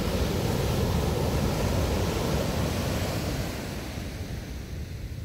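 Ocean surf: a wave breaking and washing up a sandy beach, a steady rushing that is loudest in the first few seconds and eases off after about three seconds.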